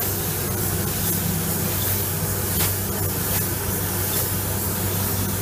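Compressed-air paint spray gun hissing steadily as paint is laid on in a blend, over a steady low hum.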